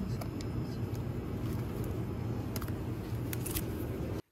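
Steady low hum and hiss of refrigerated display cases, with a few faint crinkles of a plastic-wrapped sandwich pack being picked up. The sound cuts off abruptly near the end.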